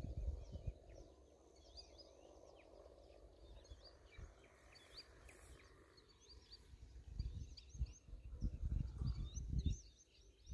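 Faint chorus of small birds at dawn: many short, high chirps and calls overlapping throughout. Low rumbling bursts come in near the start and again in the second half.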